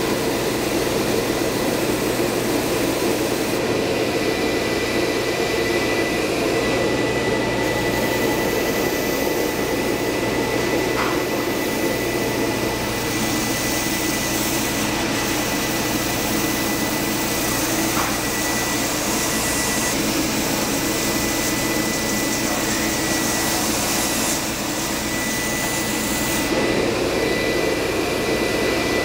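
Table-mounted belt sander with an upright abrasive belt running steadily, with a thin steady whine in its motor noise. The edge of a wooden joint piece is sanded straight against the belt, and the scratchy hiss swells and eases a few times as the piece is worked.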